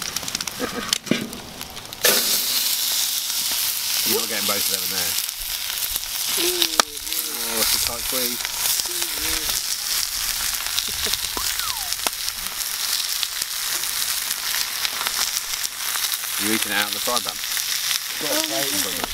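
Steaks sizzling and frying in a hot cast-iron skillet over a campfire. The sizzle starts suddenly and loud about two seconds in, as the meat goes into the pan, and then holds steady.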